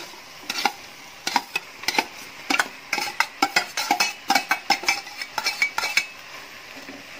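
A metal spoon clinking and scraping against a steel bowl and pan as fried chicken pieces are tipped and pushed into a simmering masala: a quick, irregular run of clinks that stops about six seconds in.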